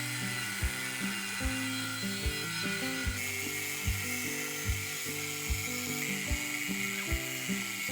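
Background music with a steady beat, a thump about every 0.8 s, over the continuous high whine of a power tool running.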